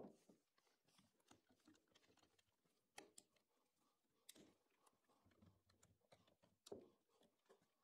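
Faint, irregular clicking and light knocks of red hand clamps being fitted and tightened on a 4x2 timber frame, with a sharper knock at the very start and a few louder clicks spread through.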